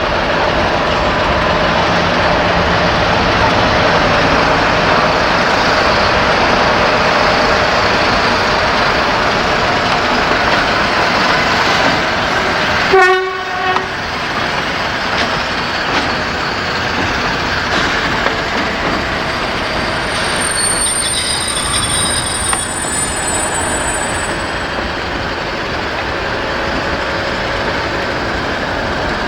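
A BR Class 60 diesel locomotive and its train running past with a steady rumble of engine and wheels. About halfway through, the locomotive's horn gives one short blast.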